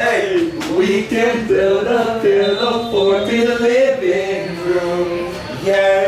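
Background music with a male voice singing held notes that step from pitch to pitch.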